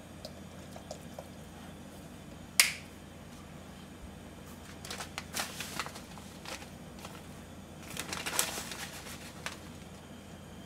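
A plastic flip-top bottle cap snapping shut with one sharp click, then a plastic bag rustling and crinkling in two spells as seasoning is handled and spooned out of it. A steady low hum runs underneath.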